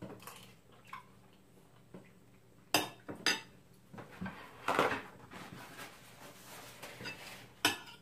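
A metal fork clinking and scraping on a china plate during eating, with sharp clinks about three seconds in and again near the end. Just before the middle comes a rougher rustle as a sheet is torn from a paper-towel roll.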